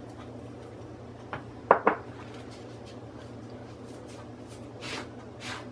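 A utensil clinks sharply against a mixing bowl twice, just under two seconds in, then a few soft scrapes and swishes as the sugar and spice filling is stirred, over a steady low hum.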